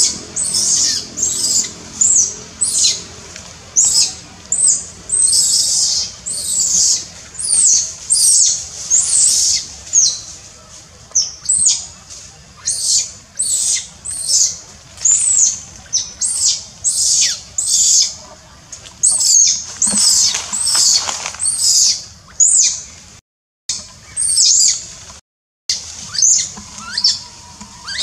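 Baby macaque screaming over and over, short high piercing cries about one a second, the distress cries of an infant being bitten and pushed away by its mother. There are two short silent gaps near the end.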